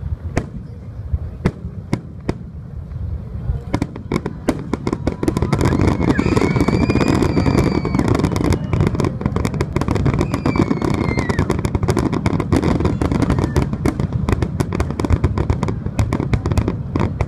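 Aerial fireworks shells bursting in quick succession. The scattered bangs thicken into a dense, continuous barrage about five seconds in.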